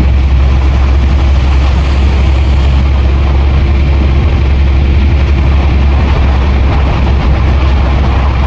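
Hino 500 truck's diesel engine running with a steady, loud low drone, heard inside the cab while driving. A steady hiss of heavy rain and wet road runs underneath.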